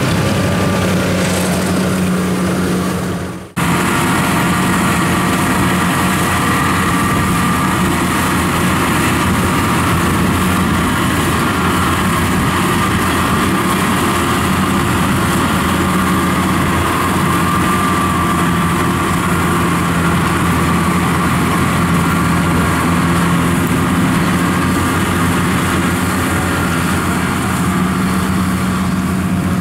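Engines of rice-harvest machinery running steadily at work: a small tracked rice-transport carrier and a Kubota combine harvester cutting rice. The sound drops out and cuts back in about three and a half seconds in.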